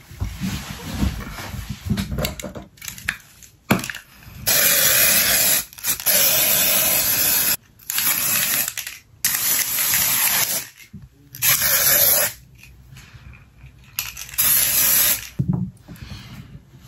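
Aerosol spray can hissing in about six long bursts of a second or so each, with short pauses between them. Before the spraying there are a few small knocks and handling clicks.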